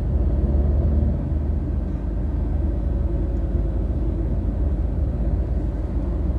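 Steady low rumble of a Tata Nexon on the move, heard from inside the cabin: road and running noise of the car driving.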